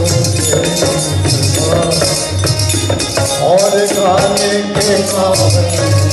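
A man singing a song over music with a steady shaker or tambourine rhythm and a regular low beat.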